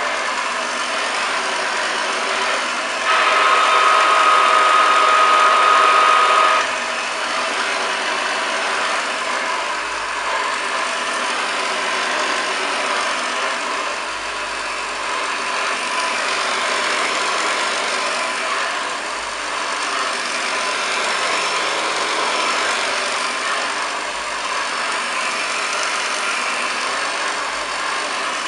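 1929 Hoover Model 725 upright vacuum cleaner running steadily. About three seconds in it gets louder, with a steady high whine, for some three seconds, then drops back to its earlier level.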